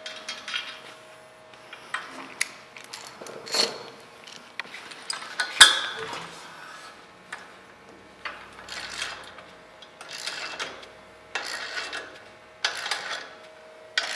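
Socket ratchet running a lock nut tight on a steel bolt while a wrench holds the bolt head: metal clicks and clinks, with one sharp clank about six seconds in. In the second half the ratchet strokes come about once a second.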